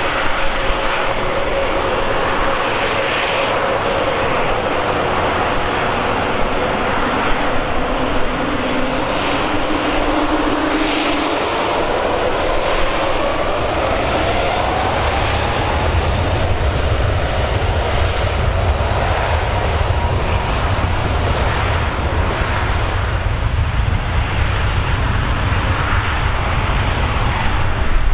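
Airliner jet engines running close by at the runway: a loud, steady rush of engine noise. Whining tones slide downward at first and then rise, and a deep low rumble builds through the second half.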